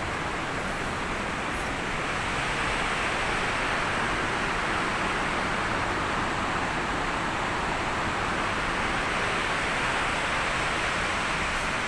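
Steady, even rush of a fast mountain river running nearby.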